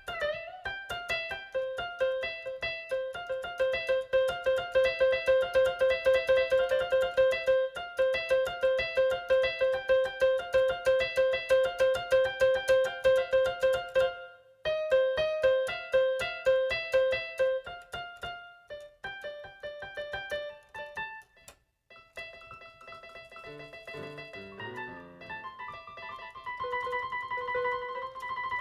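Electric keyboard music: fast, repeated piano-like notes that break off briefly about halfway and stop for a moment a little later, then resume with a falling run of low notes and higher held notes near the end.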